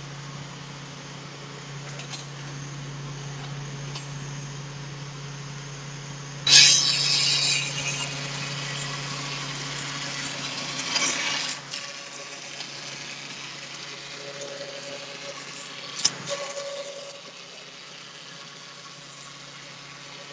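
Styrofoam-engraving CNC machine running with a steady motor hum that stops about halfway through. A loud hissing rush comes in suddenly about six and a half seconds in, a shorter one follows near eleven seconds, and there is a sharp click later on.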